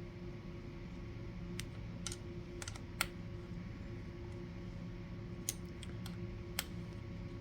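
Scattered light, sharp clicks and taps of plastic parts being handled and fitted on a reloading press's case feeder, about seven in all, the loudest about three seconds in, over a steady low hum.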